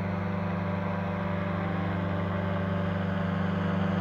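Buckeye powered parachute's engine and propeller droning steadily in level flight at a held throttle setting, a low steady hum growing slightly louder as the aircraft approaches.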